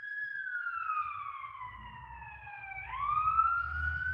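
A wailing siren, most like a passing emergency vehicle's: one pitched tone falls slowly for nearly three seconds, then jumps back up and starts rising again. A low rumble grows underneath in the second half.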